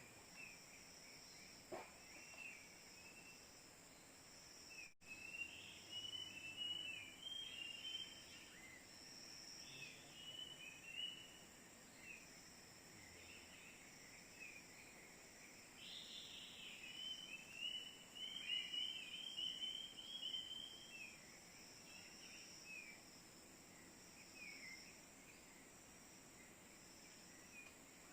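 Rapid chattering bird calls in two bouts, over a steady high drone of forest insects. The calls are of the kapas tembak being lured, either the phone playback or the wild birds answering it.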